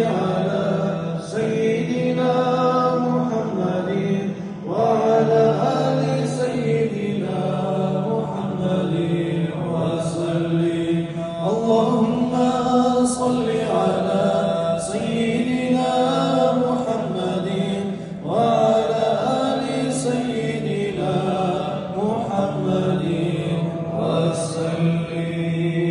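Arabic devotional chanting of salawat, blessings on the Prophet Muhammad: a voice sings long melismatic phrases over a steady low drone, pausing briefly between phrases.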